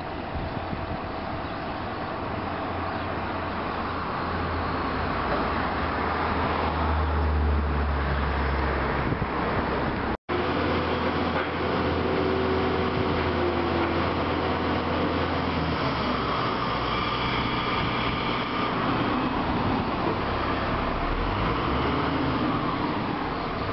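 Engines of crane trucks running amid street traffic. First a truck-mounted boom crane lifts a stone slab, its low engine drone growing louder midway. After a brief dropout about ten seconds in, a mobile crane's engine runs at a roadside building site with traffic passing.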